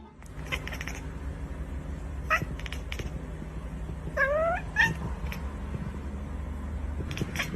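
Cat meowing: a short call about two seconds in, then a longer meow that rises in pitch about four seconds in, followed at once by a brief one. A steady low hum and a few clicks lie underneath.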